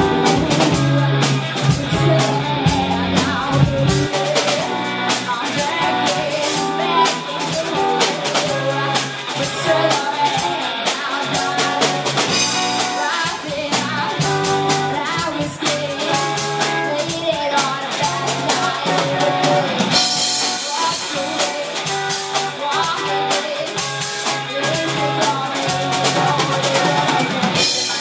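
Live rock band playing: drum kit, electric guitars and bass guitar, with a woman singing lead.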